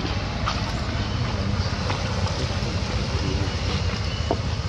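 Steady wind rumbling and buffeting on the microphone outdoors, with a few faint short ticks.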